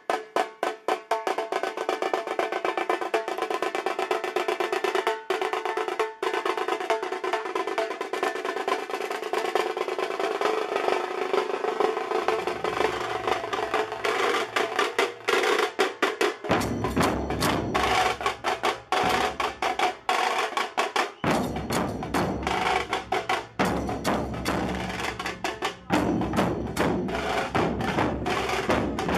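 Dhol-tasha drumming: rapid, continuous stick strokes on the small tasha drums in a fast roll, with the deep beats of the large dhol barrel drums coming in about halfway.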